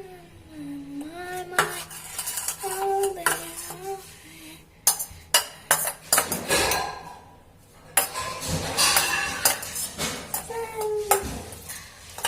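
A spoon clinking and scraping against a bowl in repeated sharp knocks, stirring thick homemade slime of glue and baking soda activator. A few short wavering tones sound between the strokes.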